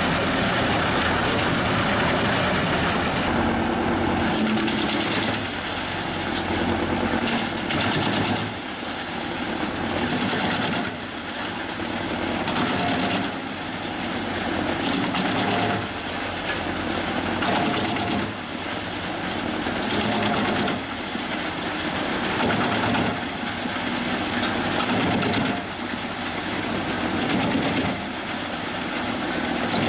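Pezzolato PTH 1000/1000 G drum wood chipper running off a New Holland tractor's power take-off, the tractor engine and drum going steadily loud. The sound dips and picks up again about every two to three seconds through most of the stretch.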